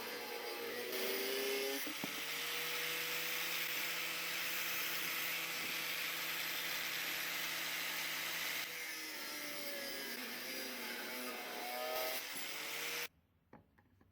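Electric power tool running under load, its motor pitch dipping and recovering over a steady grinding hiss, then cutting off suddenly near the end.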